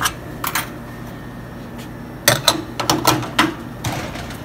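Metal portafilter clacking against an Astoria espresso machine's group head as it is pushed up and twisted in to lock against the new rubber gasket. Two light clicks come about half a second in, then a quick run of clacks late on.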